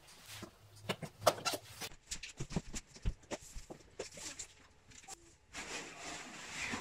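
Cardboard monitor shipping box being handled: a quick series of clicks and knocks from its plastic clips and cardboard panels. About five and a half seconds in comes a longer scraping rustle as the outer cardboard sleeve slides up off the packing.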